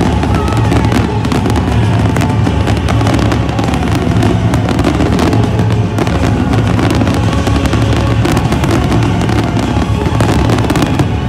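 Fireworks display: many shells bursting and crackling in quick succession, over loud music.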